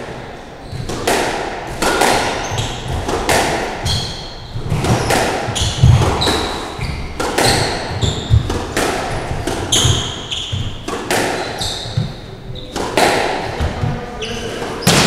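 Squash rally: the ball cracking off rackets and the walls again and again, every half second to a second, with short high squeaks of court shoes on the wooden floor. Every hit echoes in the enclosed court.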